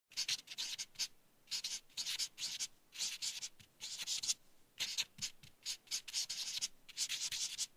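Felt-tip marker pen writing on a large white sheet: a run of short scratchy strokes, one per pen stroke, with brief pauses between letters.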